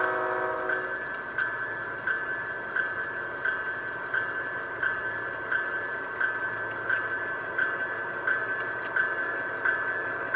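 G scale BNSF Dash 9 model locomotive running toward the listener. Its horn chord ends about a second in, and then there is a steady high whine with a regular click about every three quarters of a second.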